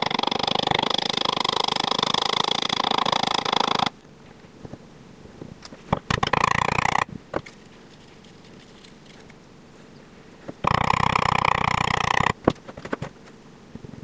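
Rough scraping and grinding as match-head powder is scraped and packed into a brass padlock's keyhole, in three bouts: a long one at the start, a short one about six seconds in and another near the end, with a few small clicks between.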